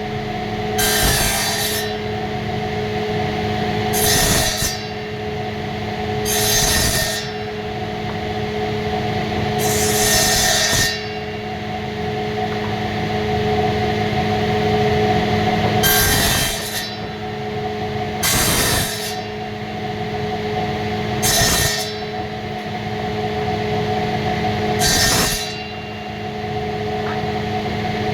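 A woodworking power tool running steadily, with about eight short, loud cuts into wood a few seconds apart.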